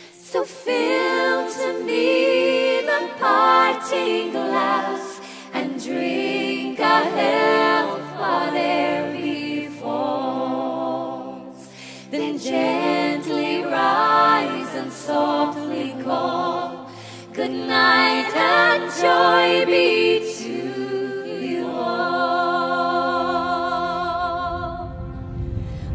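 Music: a mostly unaccompanied sung song, ending on a long held note with vibrato near the end.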